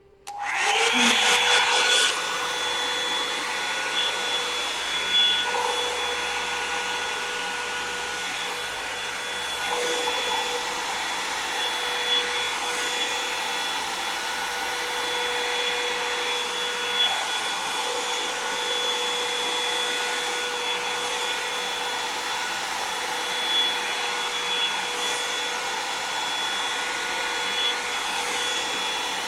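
Revlon One-Step hair dryer and volumizer brush switched on, its fan blowing steadily with a high whine. It is loudest for the first couple of seconds, then runs evenly.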